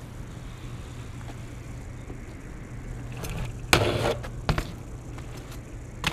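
BMX bike hits a concrete ledge about four seconds in with a sharp clack, its pegs scrape along it for a moment, and the bike comes off with a second knock. A steady traffic rumble runs underneath.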